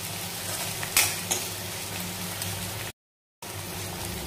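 Onions and ginger-garlic-green chilli paste sizzling in hot oil in a metal karahi while being stirred. A metal spatula clicks against the pan twice about a second in. The sound drops out abruptly for half a second near the three-second mark.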